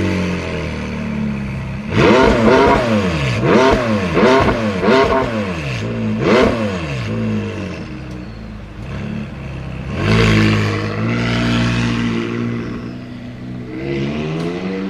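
Supercar engine just started, idling and revved hard in a quick series of about six sharp blips, each rising and falling in pitch. It settles back to idle between blips, with a longer rev near the middle and another near the end.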